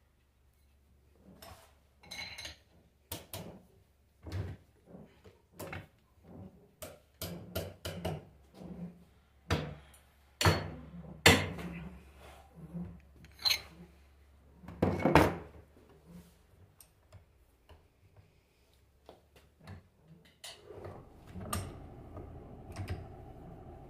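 Metal parts and hand tools being handled while an alternator is taken apart: a run of irregular clicks, knocks and scrapes, with the loudest knocks about ten, eleven and fifteen seconds in. A steady hum comes in near the end.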